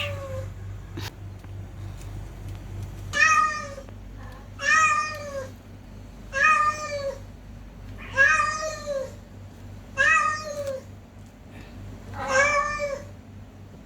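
Domestic cat meowing, six meows about two seconds apart, each rising then falling in pitch.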